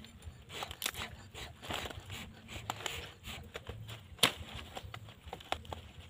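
Cleaver cutting and chopping a grilled bird on a banana leaf: scattered sharp cracks and crackles as the blade goes through the charred meat, the loudest about four seconds in.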